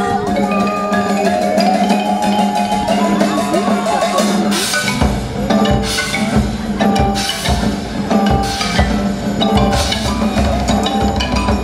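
Live percussion ensemble playing mallet keyboard instruments with hand percussion, quick pitched notes throughout. Low drum strokes join in about five seconds in.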